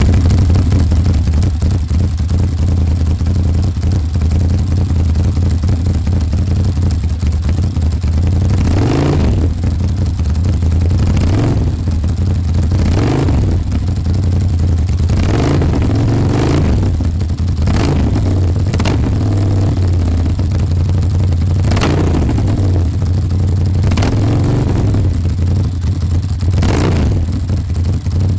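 Ducati Monster 1100's air-cooled L-twin running through an SC-Project CR-T titanium full exhaust. It idles steadily at first; from about a third of the way in come a string of short throttle blips, each revving up and dropping back to idle.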